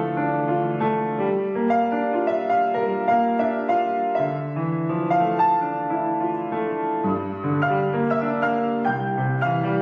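Piano music: a melody of separate notes over lower held notes.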